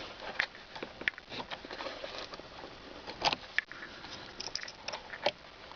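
Scattered light clicks and small plastic rattles of wiring connectors being unplugged inside a steering wheel; the sharpest click comes a little past three seconds in, another about five seconds in.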